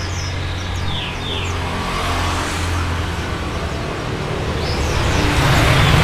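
Steady low hum of motor traffic, with a few faint high chirps about a second in; the noise swells near the end.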